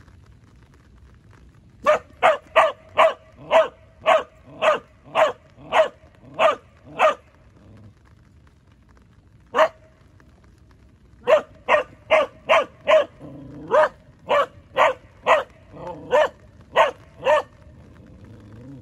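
Border collie barking on a silent cue: a quick run of about eleven sharp barks, a single bark, then another run of about a dozen, roughly two barks a second.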